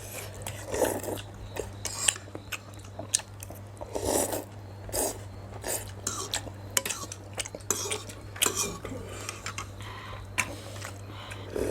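Cutlery clinking against bowls in short, scattered taps while noodle soup is eaten, with chewing in between.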